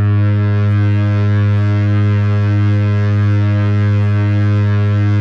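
Buchla and Eurorack modular synthesizer drone: one steady, low, foghorn-like tone rich in overtones, its middle overtones slowly wavering.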